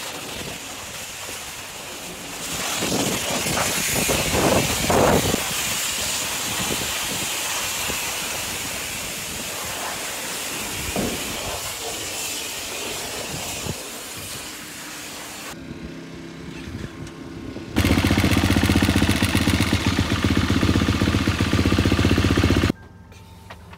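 High-pressure washer wand spraying water onto a mud-caked motocross bike, a steady hiss. After a short break, an engine runs loudly and steadily for about five seconds and cuts off suddenly near the end.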